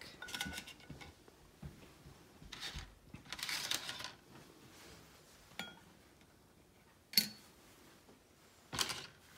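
Dry lasagna noodle pieces rustling and clicking as they are picked from a pile and laid into small ceramic pots, with a few sharp taps, the loudest about seven seconds in.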